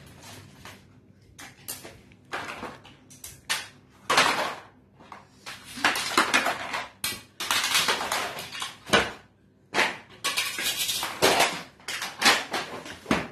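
Plastic toy pieces and cardboard game boxes clattering and rattling as they are handled, in irregular bursts with a few longer rattles.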